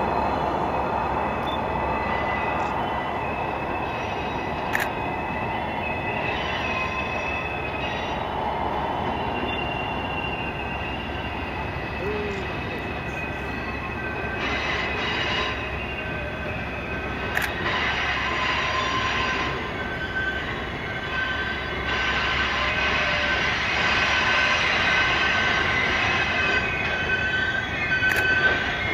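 Passenger cars backing slowly around a curved steel trestle, their wheel flanges squealing in several held high tones that swell and fade over a steady rumble of the wheels, with a few sharp clicks.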